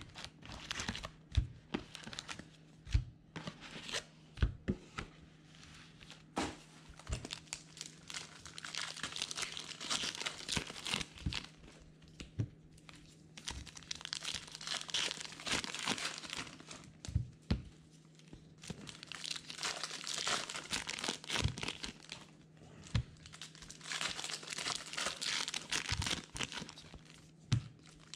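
Plastic and foil wrapping on sealed baseball card boxes and packs being torn open and crinkled, with sharp taps and clicks of cardboard being handled in the first several seconds.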